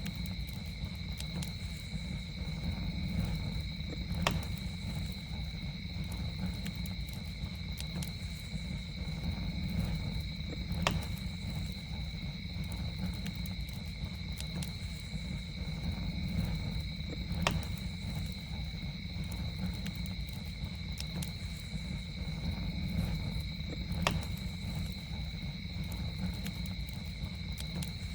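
Campfire crackling, with scattered sharp pops over a steady low rumble of burning. Behind it, insects keep up a steady high-pitched drone on two even pitches.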